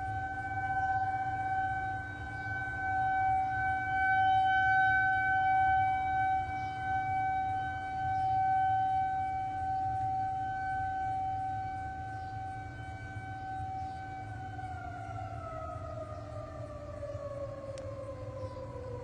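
Federal Signal 2001-SRNB rotating outdoor warning siren sounding a steady alert tone that swells and fades as it rotates. About 15 seconds in it winds down, its pitch falling steadily as the alert test ends.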